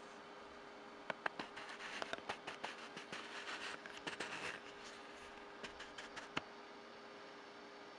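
Rustling and scratching with scattered light clicks and taps, from performers handling their protective coveralls and plastic hair caps, over a faint steady hum. A few sharp clicks come about a second in and again around six seconds.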